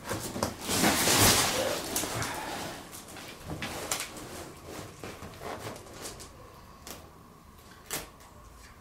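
Black plastic sheeting rustling as it is handled and smoothed flat by hand, loudest in the first couple of seconds, then softer scattered rustles and clicks, with one sharp click near the end.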